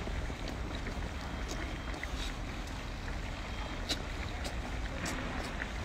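Wet chewing and sucking on pieces of cooked small octopus, heard as irregular sharp mouth clicks over a steady low rumble.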